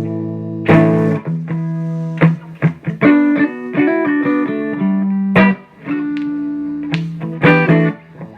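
Electric guitar played through a 1939–40 Gibson EH-185 tube amplifier's mic channel, fitted with new-old-stock tubes. Struck chords are left to ring, with a run of single notes in the middle.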